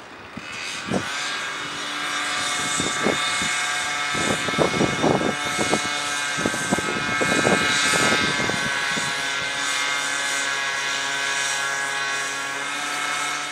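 Engine-driven power tool working dry on brickwork, running at a steady pitch with a high hiss, and a run of sharp knocks in the middle; no water is used to damp the dust.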